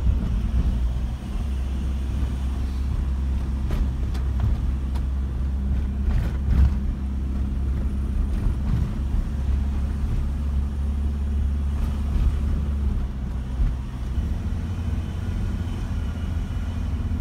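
Campervan driving along, its engine and road noise a steady low rumble heard from inside the cab, with a few faint knocks.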